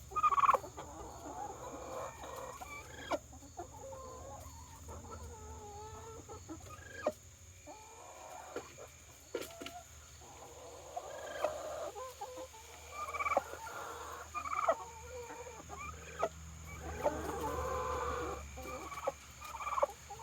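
A domestic turkey hen making a long run of odd clucking, warbling and gliding calls, with a louder call right at the start and a few sharp clicks between them. Her owner takes it that she is calling at her own reflection as if it were another turkey.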